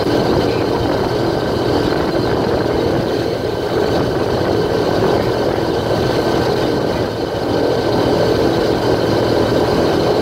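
Airboat engine and propeller running steadily while the boat cruises slowly, a constant loud drone with no change in pitch.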